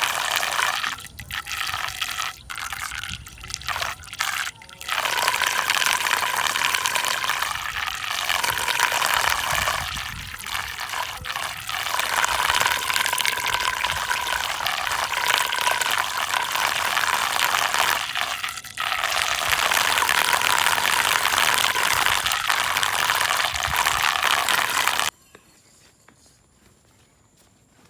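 Water swirling in a whirlpool, a steady rushing and gushing noise with a few brief dips in the first seconds; it cuts off suddenly near the end.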